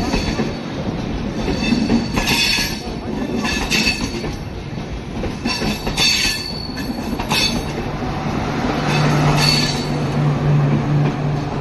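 Indian Railways express coaches rolling slowly past as the train departs: a continuous wheel-on-rail rumble with repeated clatter and brief metallic wheel squeals. Near the end a steady low drone joins in as the diesel luggage-brake-and-generator power car goes by.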